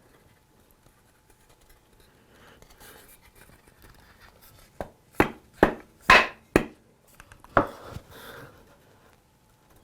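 Quartersawn white oak chair parts knocking together as rails and legs are fitted at their mortise-and-tenon joints. Faint handling and rustling first, then about seven sharp wooden knocks in quick succession about halfway in.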